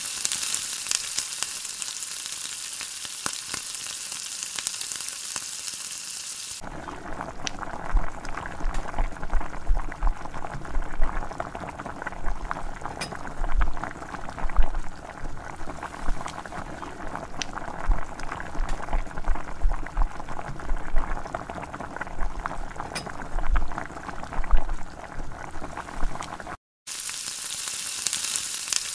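Hot oil sizzling and bubbling in a large iron kadhai as strands of dough deep-fry. It starts as a steady high hiss and changes abruptly about six seconds in to a fuller crackling and bubbling, with scattered dull knocks.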